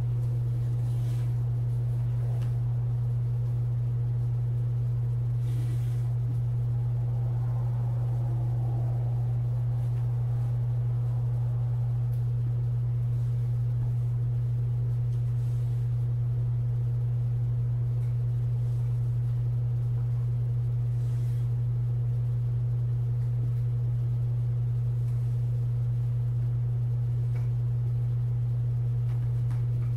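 A steady low hum: one unchanging deep tone.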